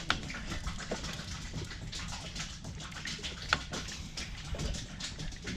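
Water lapping and splashing around a small boat at sea: irregular light clicks and taps over a low steady rumble, with a sharper tick near the start and another about three and a half seconds in.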